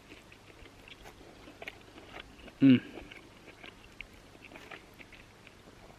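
Faint scattered clicks and crunches, with a short vocal sound about two and a half seconds in.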